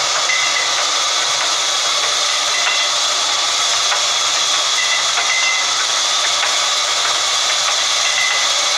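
Large sawmill band saw cutting lengthwise through a mahogany log, making a steady, unbroken sawing noise as the blade runs through the wood.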